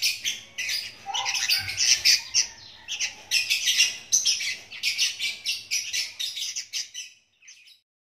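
Young sooty-headed bulbuls, about five weeks old, chirping in quick, rapidly repeated high calls; the chirping stops abruptly about a second before the end.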